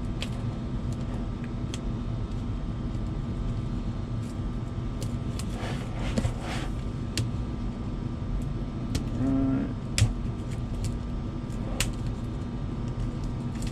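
A steady low hum with scattered light clicks and rustles from a cardboard product box being torn open along its pull-tab strip. There is a louder rasping stretch about six seconds in and one sharp click near ten seconds.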